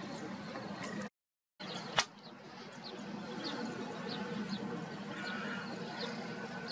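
Open-air marsh ambience: a steady low rumble with faint, short high bird chirps repeating. About a second in the sound drops out completely for half a second, then returns with a single sharp click.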